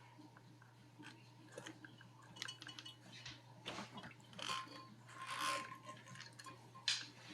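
Scattered faint clicks, taps and rustles of a borescope cable being handled and pushed into a dishwasher's corrugated drain hose, busiest in the middle.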